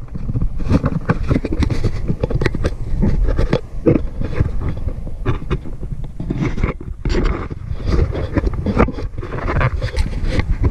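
Camera handling noise: irregular rubbing, scraping and knocking on the action camera's body and microphone as it is held and moved about, over a low rumble.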